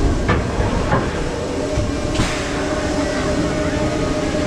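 Expedition Everest roller coaster train rolling along its track: a steady rumble with a faint hum, two sharp clicks in the first second, and a short hiss about two seconds in.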